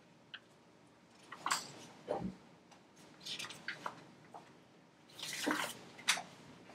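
Sheets of paper rustling and being shuffled by hand, in short irregular bursts, with a longer rustle about five seconds in and a soft knock just after two seconds.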